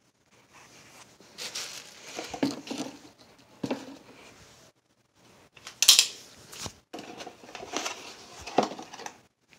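Cardboard packaging being handled: irregular rustling and crinkling, with a few small knocks on a hard countertop. A sharp, bright crackle about six seconds in is the loudest sound.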